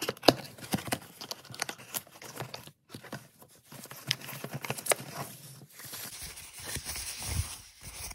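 Cardboard box and packaging handled on a wooden table: irregular taps and clicks of cardboard flaps and a plastic tray. From about six seconds in, a steadier rustle and crinkle of tissue-paper wrapping being pulled open.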